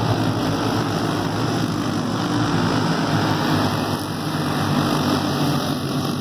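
A pack of racing go-karts running at speed, several small kart engines sounding together in a steady, layered drone.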